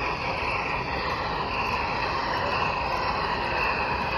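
Model Union Pacific Big Boy steam locomotive running along layout track, giving a steady, even whir from its motor and wheels over constant background noise.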